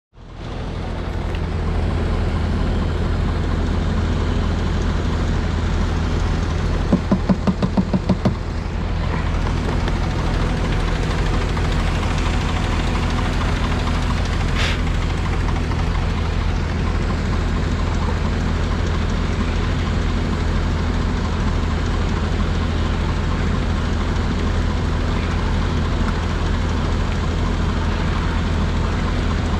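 Kubota tractor's diesel engine running steadily. About seven seconds in, a quick run of louder knocks lasts about a second and a half.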